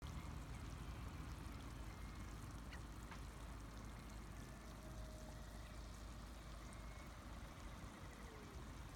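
Natural geothermal hot spring boiling, a steady watery bubbling and churning.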